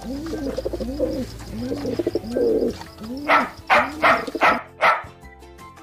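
Rock pigeon cooing: a series of low coos, each rising and falling. Five short, loud, sharp sounds about half a second apart come in the second half.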